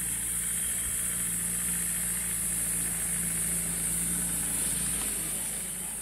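Steady, loud high-pitched drone of cicadas, with a safari vehicle's engine idling low and steady underneath.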